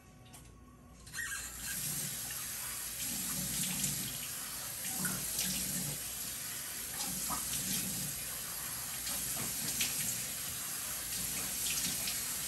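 Bathroom sink tap turned on about a second in and running steadily, with repeated splashing as water is scooped up to rinse cleanser off the face.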